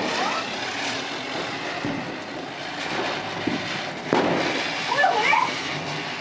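A ground firework spraying sparks, giving a continuous hissing crackle with sharper pops. It grows louder about four seconds in.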